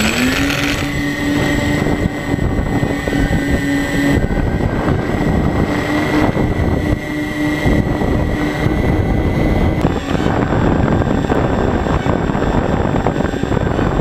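Model airplane's motor and propeller running at steady high throttle during takeoff and climb, heard from the onboard camera: a steady whine over loud rushing wind on the microphone. The whine thins out about ten seconds in.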